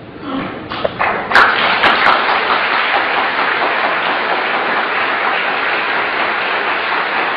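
A large audience applauding; the clapping builds up over the first second or so and then holds steady.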